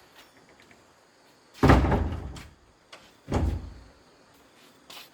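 Two heavy thumps about a second and a half apart, each dying away over most of a second.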